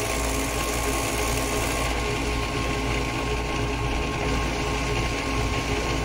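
Seaflo 33 series diaphragm shower pump running steadily with a low hum; it is so quiet that it is really hard to hear.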